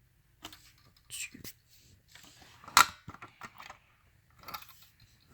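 Handling noise: scattered light clicks and short rustles, with one sharp click near the middle.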